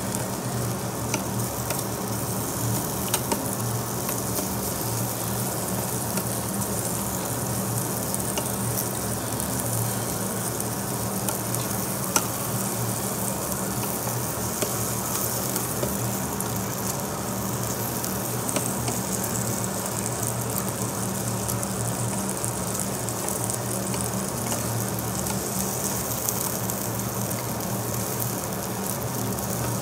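Marinated duck meat sizzling steadily on a round tabletop barbecue grill, over a steady low hum. Scattered sharp clicks of metal tongs against the grill grate as the pieces are turned, the loudest about twelve seconds in.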